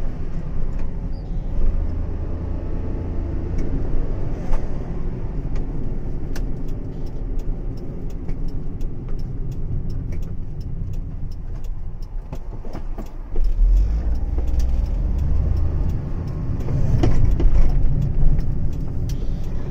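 Car driving along a town road: a steady low rumble of engine and tyres, growing louder a little past the middle and again near the end, with faint rapid ticks through the middle stretch.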